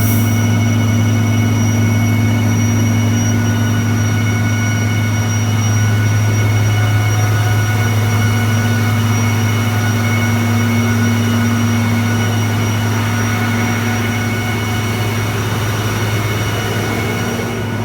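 Engine running loud and steady on a Taylor engine dynamometer during a dyno test, with a strong, constant low hum.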